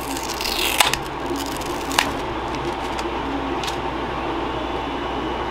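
Hands working a lithium battery pack out of its plastic case: a short scrape in the first second, then a few light clicks, over a steady background hum.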